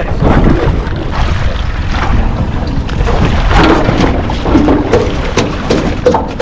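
Wind buffeting the microphone, a steady low rumble, with a few light knocks about five seconds in.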